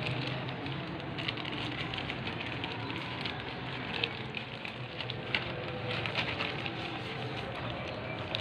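Plastic courier mailer bag crinkling and rustling as it is cut open with scissors and handled, with scattered short snips and crackles.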